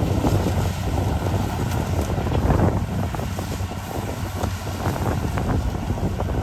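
Kubota rice combine harvester running at work, its engine a steady low drone under irregular crackling as it cuts and takes in lodged rice stalks.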